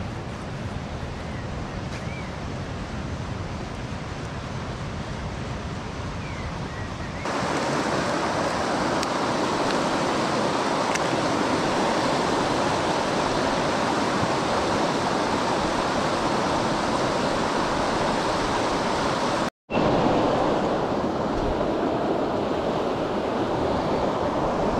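Rushing water of river rapids, a steady noise that gets louder about seven seconds in, with a split-second break near twenty seconds.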